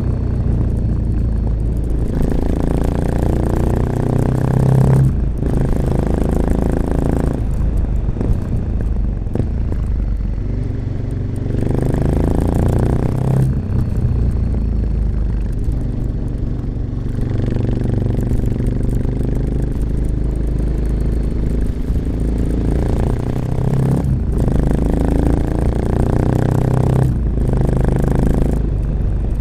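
1986 Honda XL600RM's single-cylinder four-stroke engine running through an XRacing aftermarket exhaust with a dB killer, under way on the road. It climbs in pitch in repeated runs, each broken off by a short, sudden dip as the throttle closes, about six times.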